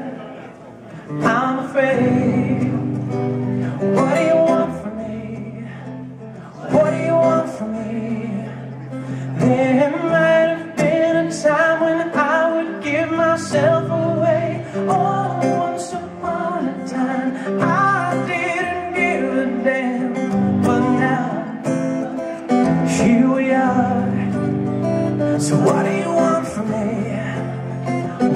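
A man singing a pop-rock song live into a microphone over strummed acoustic guitar, in a stripped-down acoustic arrangement.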